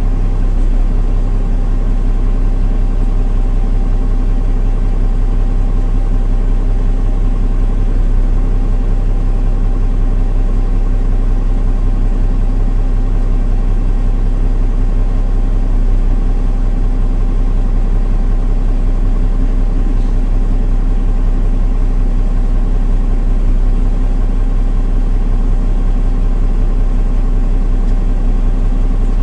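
Engine of a Solaris Urbino 15 city bus running at an even, unchanging speed: a steady low hum with no revving or gear changes.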